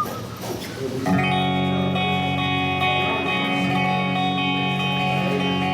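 Electric guitar: a chord struck about a second in and left to ring, held steady, over low crowd chatter.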